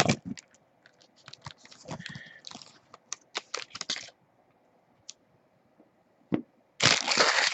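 Trading-card box and foil pack being handled and opened: a run of crinkling and clicking for a few seconds, a single knock about six seconds in, and a loud tearing crinkle near the end.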